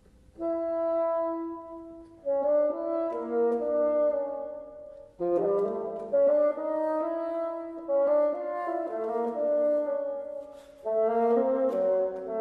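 Solo bassoon starts playing about half a second in after a pause, then plays a series of phrases of held notes, each phrase starting sharply.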